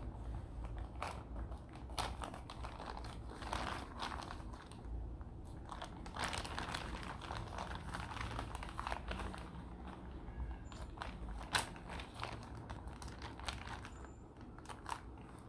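A courier packet being cut open with small scissors: irregular crinkling and rustling of the packaging with scattered sharp clicks, going on in fits and starts.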